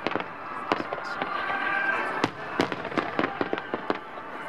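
Aerial fireworks shells bursting in quick succession, several sharp bangs and crackles a second, over music played from loudspeakers for a display set to music.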